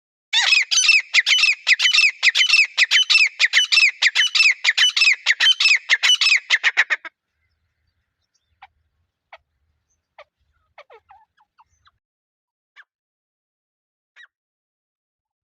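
Francolin (teetar) calling: a loud, fast run of repeated harsh notes, about four a second, lasting about seven seconds. It then falls away to a few faint single chirps.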